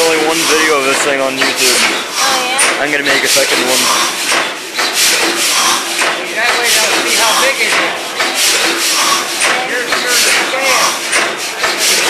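600 hp Snow natural-gas compressor engine running, a loud, steady clatter of repeated mechanical knocks over a hiss.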